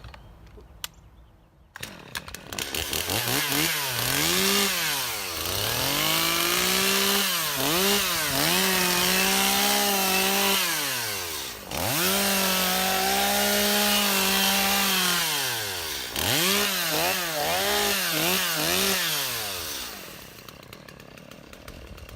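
Stihl MS 250's 45 cc two-stroke chainsaw engine, revved up and down in quick surges, then held at high revs for several seconds at a time while cutting wood, with short drops in between. It falls back to a low run near the end.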